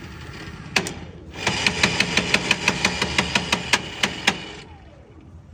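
E-rickshaw drivetrain knocking: a sharp click about a second in, then a fast, even knock about six times a second for some three seconds while the motor turns. It stops with a faint falling whine as the motor winds down. It is the fault noise that the title puts down to the gearbox or an axle bearing.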